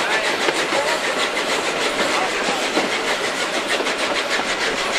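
Vintage steam locomotives working a train up a steep metre-gauge line: a steady run of rapid, even exhaust beats mixed with wheel and rail noise from the coaches.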